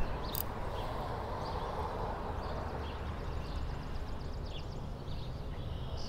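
Outdoor background noise: a steady low rumble with faint, scattered high chirps.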